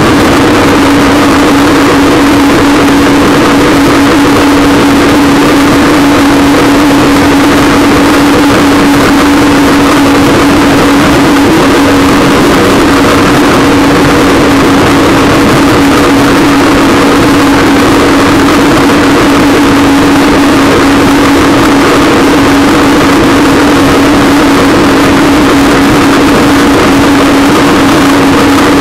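Personal watercraft engine running at a steady cruising speed, one unchanging hum, under a loud rush of water and spray along the hull.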